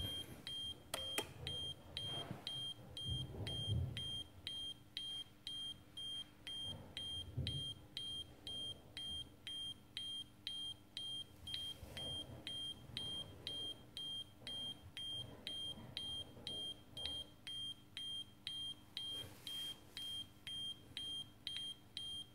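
Alarm buzzer of an insulation-monitoring demo case for a medical IT power system, beeping a single high tone about twice a second. It signals a simulated insulation-loss fault.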